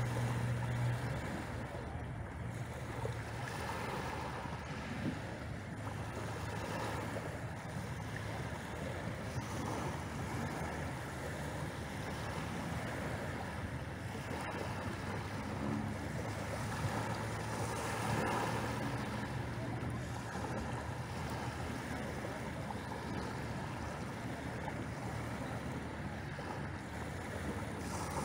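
Small waves breaking and washing up a pebble beach on a calm sea, as a steady rush that swells every few seconds. A low steady hum runs underneath and is loudest in the first second.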